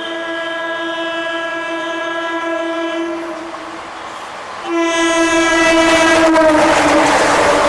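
Train horn sounding two long blasts, the second louder and dipping in pitch as the train passes. Near the end the wheels start clattering over the track joints.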